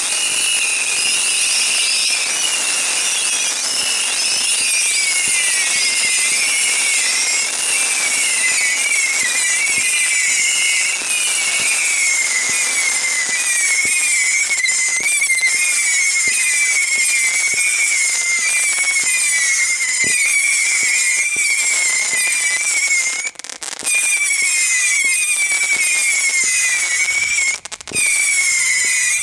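Neighbour from Hell 1492-shot barrage firework firing a dense, continuous stream of screeching missiles, their many overlapping whistles wavering in pitch. The noise breaks off briefly twice in the last few seconds.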